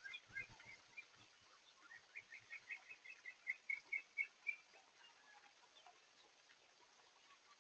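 A bird calling faintly: a quick run of short, high chirps, about four a second, that stops a little past halfway.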